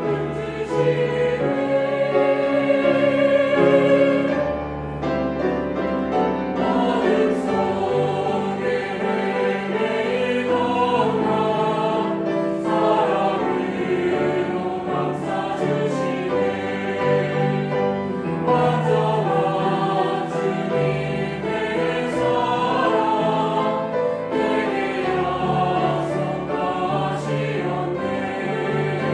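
Mixed choir of men's and women's voices singing a hymn in Korean, in sustained sung phrases.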